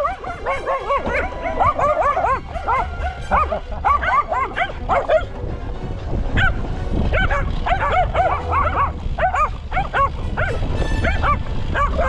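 Two small hounds yipping and yelping in rapid, excited bursts as they run beside a mountain bike, over a low rumble of the bike rolling on a dirt track.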